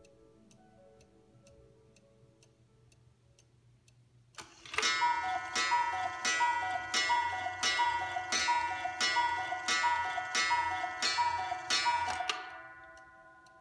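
Mechanical 1-day Black Forest cuckoo clock: faint steady ticking, then a few seconds in the cuckoo strikes the hour, about a dozen two-note falling cuckoo calls, each with a ringing gong strike, at an even pace of a little under two per second.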